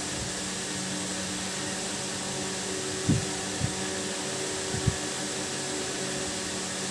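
Steady hiss-like noise with a faint hum. Four soft, low thumps come near the middle.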